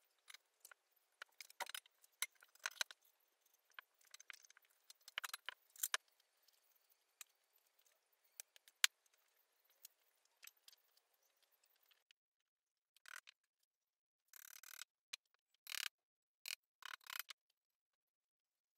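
Faint, scattered clinks and taps of metal bicycle-frame parts, bolts and hand tools being handled and fitted together, with a few short, louder rattles between about thirteen and seventeen seconds in.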